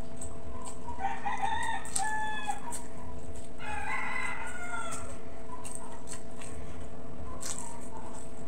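A rooster crowing twice, about a second in and again around four seconds in.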